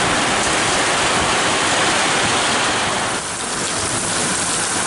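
Heavy rain pouring down: a loud, steady hiss of the downpour, easing slightly for a moment about three seconds in.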